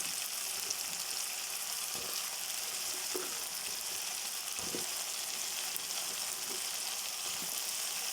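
Brinjal pieces frying in hot oil in a kadai, giving a steady sizzle, with a few short scrapes of a spoon stirring them.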